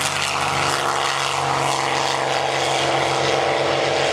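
P-51D Mustang's Packard Merlin V-12 at takeoff power with propeller noise as the fighter runs down the field and lifts off. A steady, loud engine note that grows a little louder toward the end.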